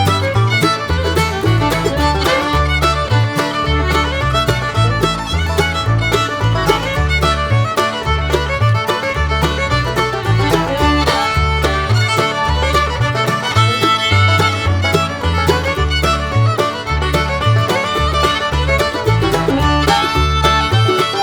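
Instrumental background music, a lively fiddle-led tune over a steady, pulsing bass line.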